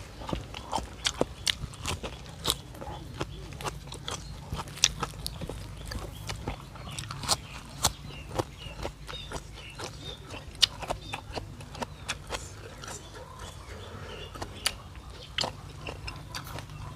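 Close-miked eating sounds: irregular chewing, smacking and mouth clicks from someone eating beef noodle soup.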